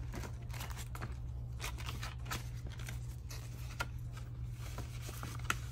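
Paper bills rustling and crinkling as they are handled and slipped into a cash savings challenge, a string of short soft rustles and clicks over a steady low hum.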